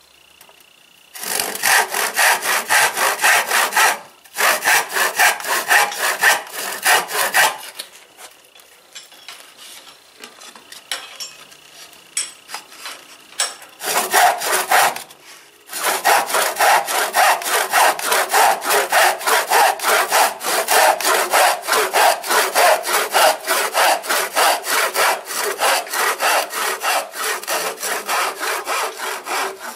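Antique hand saw cutting a wooden board held in a vise, with quick, even back-and-forth strokes. Two spells of sawing with a short pause between them, then a quiet break of several seconds and a brief burst. Steady sawing resumes and continues through the second half.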